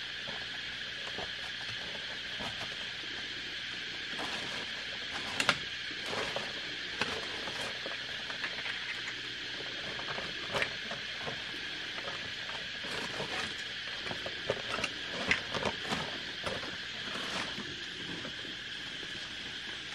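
Dry leaves and twigs rustling and crackling in irregular bursts as hands and a stick search through forest-floor leaf litter, loudest about five seconds in and again around fifteen seconds in. Under it runs a steady high insect hum at two pitches.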